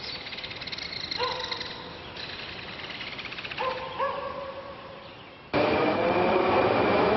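Birds chirping in fast trills with a few short dog barks. At about five and a half seconds this cuts suddenly to a subway train's loud running noise with a rising motor whine.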